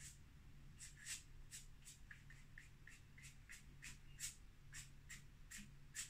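Faint, quick scratchy strokes of a brush or pastel against a stretched canvas, about three a second and uneven, as small marks are worked into a painting; a slightly louder stroke near the end.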